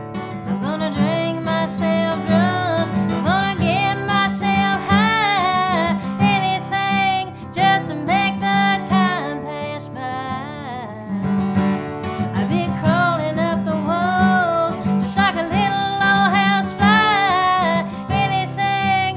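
Solo acoustic performance: a Troublesome Creek acoustic guitar played with plucked strings under a woman's voice singing a bending, wavering melody.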